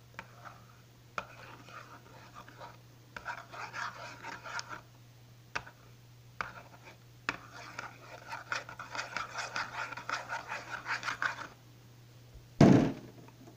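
Homemade slime being stirred in a container with a utensil: quick rhythmic squishing and scraping strokes in two spells, with a few clicks between. Near the end, one loud thump.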